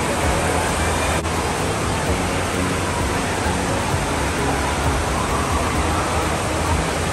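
Steady rushing and splashing of waterpark water, with a faint hum of voices and one small click about a second in.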